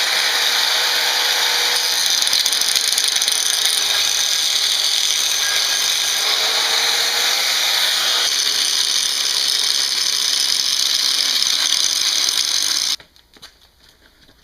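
Power grinder running steadily, grinding a V-groove along the crack in an Atomic 4 exhaust manifold to prepare it for welding. It cuts off abruptly near the end.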